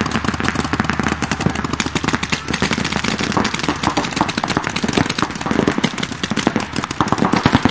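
Several paintball markers firing rapid strings of shots at once: a dense, unbroken clatter of overlapping pops.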